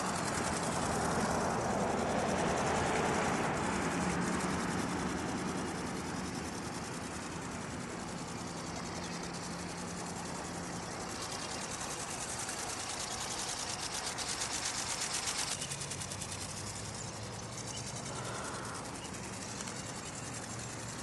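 Radio-controlled ornithopter's small electric motor and flapping-wing gearbox buzzing steadily as it flies overhead, shifting slightly in pitch about two-thirds of the way through.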